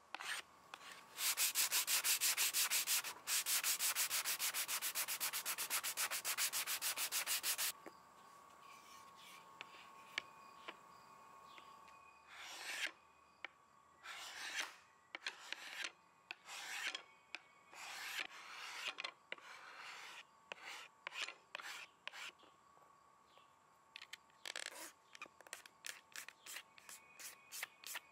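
Hand paint scraper scraping thin old finish off a wooden cabinet panel. Fast back-and-forth strokes for several seconds, then slower single pulls about once a second, then short quick scrapes near the end.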